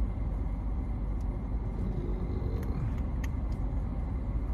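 Steady low rumble of a car running, with a few faint clicks.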